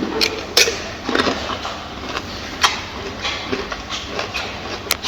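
A gorilla eating, with several sharp crunches and snaps of food breaking amid chewing.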